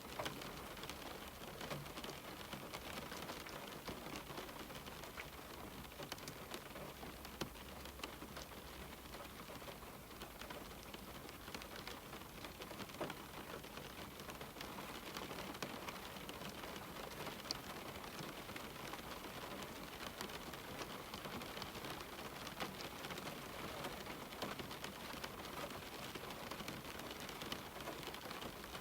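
Steady rain falling on a window: an even hiss with many small drop ticks scattered through it.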